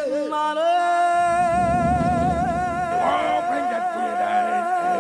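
Background music: one high, voice-like note comes in about half a second in and is held with a slight wavering vibrato, over a low accompaniment.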